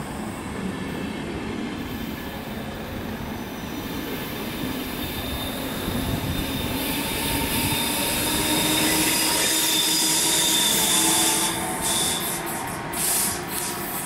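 ČD Railjet passenger train rolling past on the station track, with rail rumble and hiss and a thin wheel squeal. It grows louder through the middle and peaks about eleven seconds in, as the class 1216 Taurus electric locomotive at its rear end comes by, then falls away.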